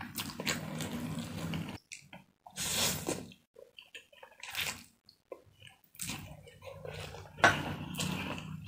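Wet slurping and chewing of a mouthful of fried instant noodles eaten close to the microphone, in irregular bursts, with a single sharp knock near the end.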